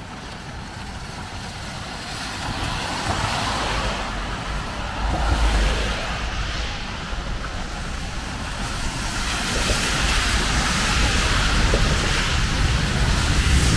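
Road traffic on rain-soaked asphalt: tyres hissing on the wet road, swelling as vehicles pass and growing louder toward the end, over a steady low rumble.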